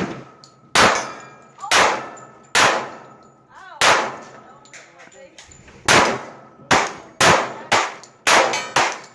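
Gunshots at a shooting range: about eleven shots, irregularly spaced, each echoing briefly, with a pause in the middle and a quicker string near the end.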